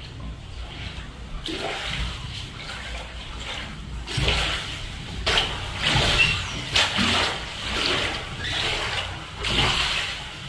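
Hurricane wind and driving rain, gusting in irregular surges that swell and fade every second or two, with a low rumble underneath.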